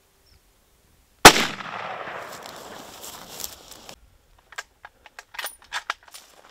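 A single hunting-rifle shot about a second in, its echo rolling away for about two and a half seconds. Then a quick run of sharp metallic clicks as the rifle's bolt is worked for another round.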